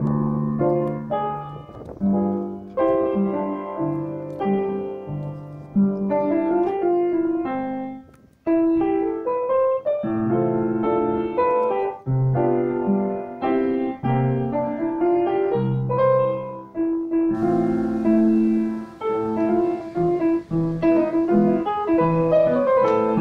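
Solo piano background music, slow melody over sustained chords.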